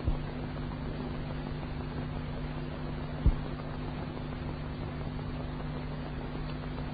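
Steady hiss and low mains hum of an old recording, with a soft click at the start and another a little past three seconds in.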